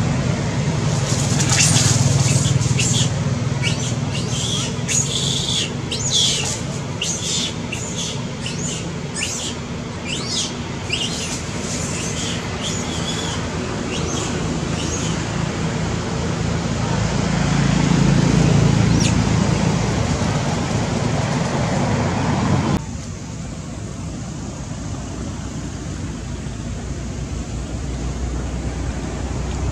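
Birds chirping in quick short calls over a steady low engine hum from traffic. About two-thirds of the way through, the sound drops suddenly to a quieter, even hum, and the chirps stop.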